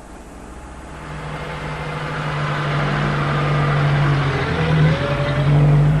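Van engine pulling away and accelerating, growing louder, with a rising whine a little before the end.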